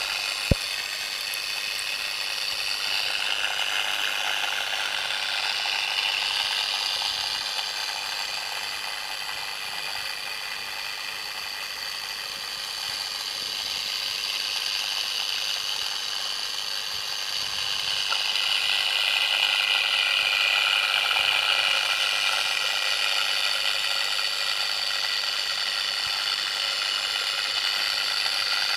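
Steady mechanical whirring noise picked up by an underwater camera, with one sharp click about half a second in and a swell in loudness a little past the middle.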